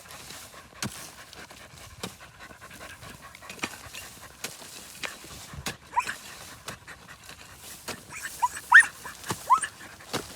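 A puppy panting, with several short high-pitched whines or squeaks in the last few seconds.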